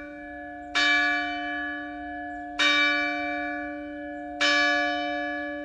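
A bell tolling: three strikes about two seconds apart, all at the same pitch, each ringing on and slowly dying away.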